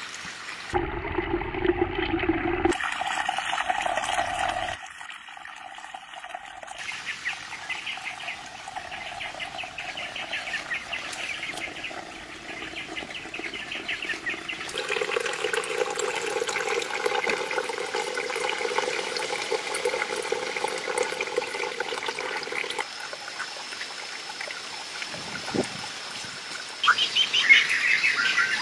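Water trickling and pouring into a small garden pond from a stone water feature, with birds calling. The sound changes abruptly several times, as between separate takes.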